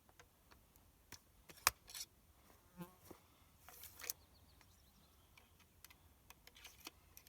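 Sparse small clicks and taps of hands working a muzzleloading rifle while a patched round ball is started into the muzzle, one sharper click about two seconds in. A fly buzzes past briefly near the middle.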